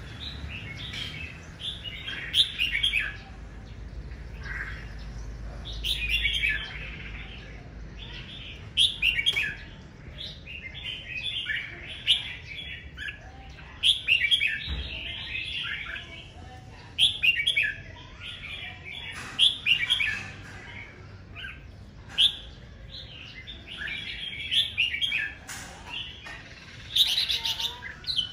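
Caged red-whiskered bulbul singing, short bright chirping phrases repeated every second or two.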